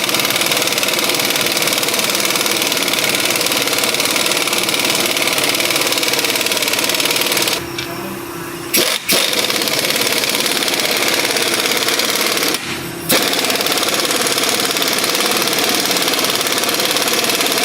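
Pneumatic impact wrench running nuts down onto the rear strut's lower mounting bolts: three long runs with two short pauses between them and a brief burst about nine seconds in.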